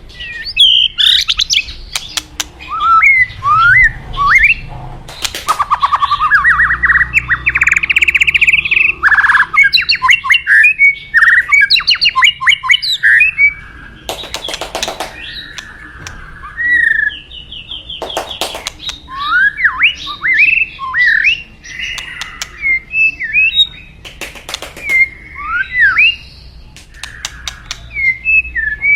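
White-rumped shama singing a long, varied song of rising and falling whistles, a fast trill and sharp clicks, over a faint low rush of flowing water.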